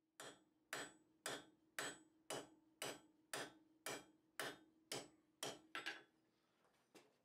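Hand hammer striking a hot square steel bar on an anvil, about two blows a second, a dozen in a row, with a low ring hanging on between blows, as the smith starts forging in a shoulder. The hammering stops near the end with one last light knock.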